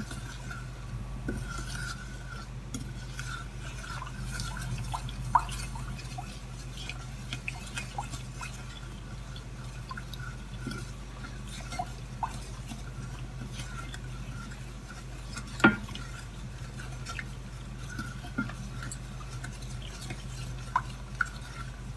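Wooden spoon stirring melted butter and sugar in a stainless steel saucepan, with light scattered clicks of the spoon against the pan. The sharpest click comes about two thirds of the way through, over a steady low hum.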